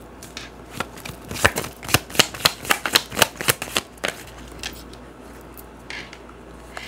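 A deck of tarot cards being shuffled by hand: a quick run of sharp card slaps, about three or four a second, for a couple of seconds, then only a few softer taps as the cards are handled.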